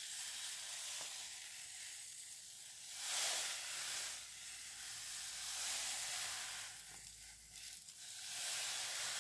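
Granulated sugar pouring from a paper bag onto gooseberries in a saucepan, a steady grainy hiss that swells and eases as the pour goes on.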